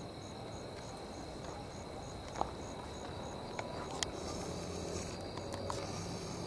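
Night insects in dense brush: a steady high-pitched drone with a regular cricket chirp about three times a second, the chirping dropping out for a few seconds in the second half. A few sharp clicks and faint rustles stand out over the low background noise.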